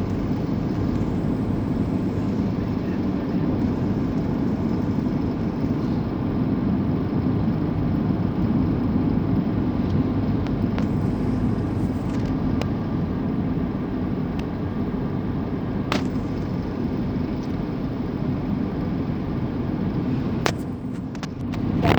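Steady running noise of a vehicle moving along a road, a low rumble of engine and tyres, with a few sharp clicks or knocks.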